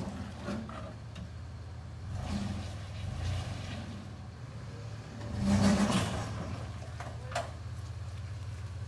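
Off-road truck engine running at low speed while crawling over rocks, with a short rev about halfway through and a single sharp knock a little later.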